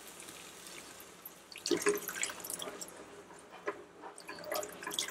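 Water poured from a jug into a pan of thick cooked masala, splashing and spattering irregularly, starting a little under two seconds in.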